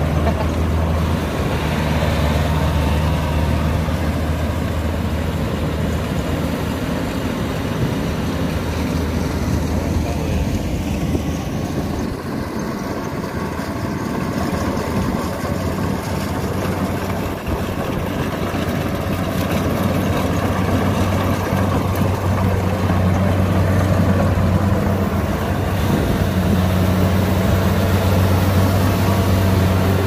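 Kubota combine harvester's diesel engine and threshing machinery running steadily as it cuts and threshes rice. The running drops a little about halfway through and grows louder again near the end.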